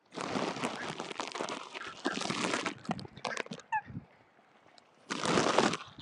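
Mallards and coots splashing and jostling on the water, in two noisy spells, with a short bird call about halfway through.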